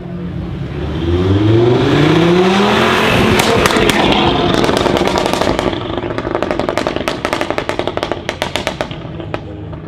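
Audi RS3 8V's turbocharged five-cylinder engine, fitted with a Milltek downpipe and with the secondary catalytic converter removed, accelerating hard with its pitch climbing over the first few seconds. A rapid run of crackles and pops from the exhaust follows for several seconds.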